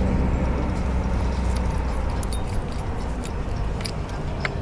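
Steady low rumble of a moving bus heard from inside its passenger cabin, with scattered light clicks.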